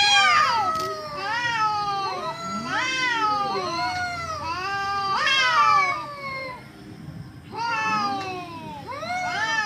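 Two cats yowling at each other in a fight: long, drawn-out wails that rise and fall in pitch, often overlapping. There is a short lull about seven seconds in before the yowling resumes.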